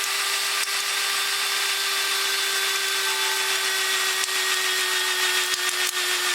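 Battery-powered hydraulic crimping tool running steadily with an even motor whine as its piston squeezes pieces of wooden roofing batten, with a few sharp clicks near the end.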